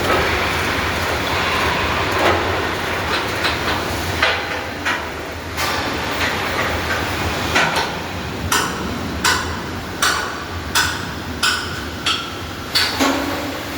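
Hammer-like strikes on steel in a shipyard: scattered knocks at first, then a regular run of sharp blows, roughly one every second, over a steady industrial hum.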